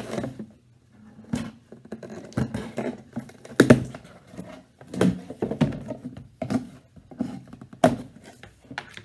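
Cardboard shipping box being opened with scissors: scissors slicing packing tape and cardboard flaps pulled open, with a string of irregular knocks and thunks as the box is handled on a wooden table.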